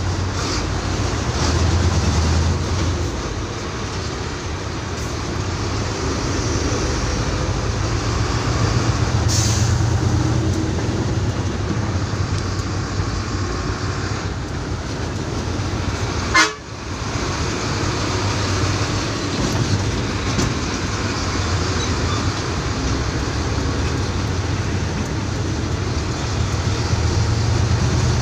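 Truck engine running with road noise, heard from inside the cab while moving slowly in stop-and-go traffic. There is one sharp knock about halfway through.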